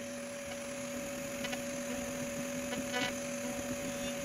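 A 2.2 kW PwnCNC router spindle runs at a steady whine while a 90-degree V-bit carves into a wooden board, with a few faint ticks from the cut.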